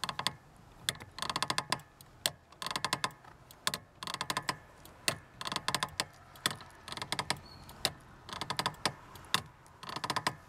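Lada Granta clutch pedal pressed and released over and over, about seven strokes, each giving a rapid grating squeak followed by a single click. The squeak and grate comes from the pedal's return spring as it stretches, like an old rusty spring being pulled.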